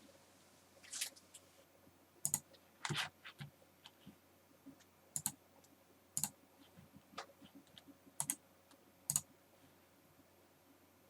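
Irregular clicks of a computer mouse and keyboard, about a dozen, several in quick pairs, against a quiet room.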